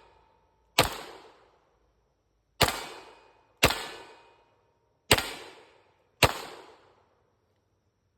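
Glock 34 9mm pistol firing five single shots at an uneven pace, one to two seconds apart, each shot ringing off for over half a second.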